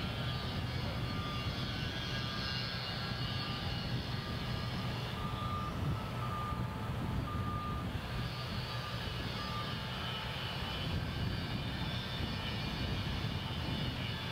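Steady low drone of a crane's diesel engine running while it holds and moves a lifted load. Faint thin whining tones come and go above it.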